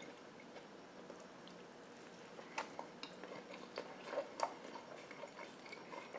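A person chewing a crisp birria taco: faint chewing and mouth sounds, with a few soft clicks and smacks around the middle.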